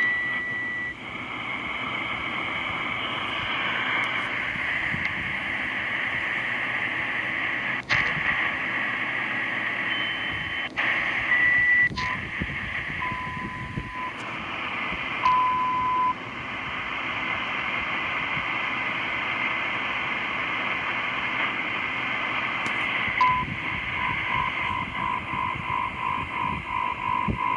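Shortwave receiver on 7211 kHz hissing with static, while extremely slow Morse code comes through as long, widely spaced steady beeps, a second or so each, at a few different pitches. A few sharp static clicks fall between them. Near the end a fast, even run of short beeps sets in, about four a second.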